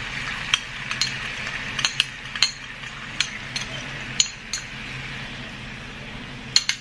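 Fish and sauce sizzling in a frying pan, with a spoon or spatula clicking and clinking against the pan a dozen or so times; the sizzle dies down near the end.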